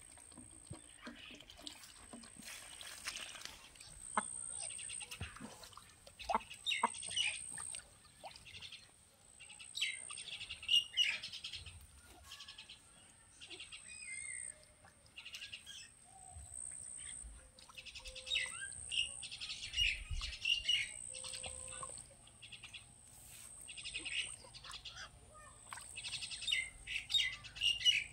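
Birds chirping in short bursts every second or two, over a thin high note that keeps repeating.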